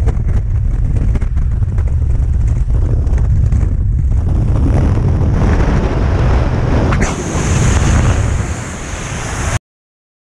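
Wind rushing over a camera microphone in tandem skydiving freefall, a dense low rumble. About four to five seconds in it turns into a brighter, hissier rush, then cuts off abruptly shortly before the end.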